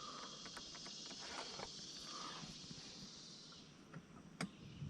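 Faint, steady high-pitched insect drone that cuts off suddenly about three and a half seconds in, with a few light clicks and short chirps over it.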